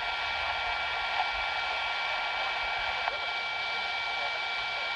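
Steady radio static hiss on the received emergency-alert channel once the weekly EAS test broadcast has ended, with two faint steady high tones running through it.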